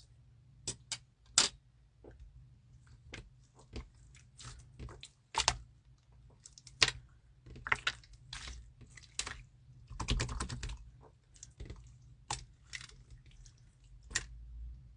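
Slime being squeezed and poked by hand, making irregular sticky clicks and pops, with a denser run of crackling about ten seconds in.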